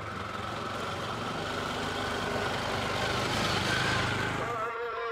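Three-wheeled auto-rickshaw's small engine running as it drives up and passes close by, getting louder as it nears. The engine sound cuts off abruptly near the end as music starts.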